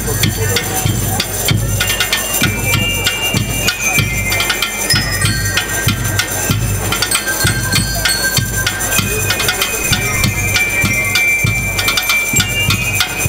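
Peruvian school rhythm band (banda rítmica) playing: drums keep a steady, even beat under a high melody that moves in held, stepwise notes.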